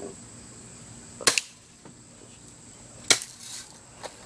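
Two BB gun shots, sharp cracks a little under two seconds apart, with fainter clicks around them.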